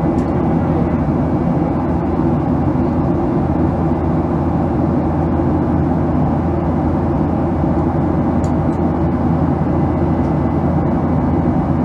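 Steady cabin noise of a Boeing 737-800 in flight: its CFM56 turbofan engines and the airflow past the fuselage make an even, low drone with no change in level.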